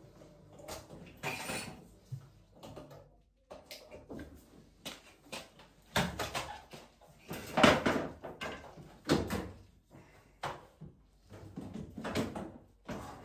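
Irregular knocks, clunks and clatter of parts and tools being handled on a washing machine under repair, the loudest about halfway through.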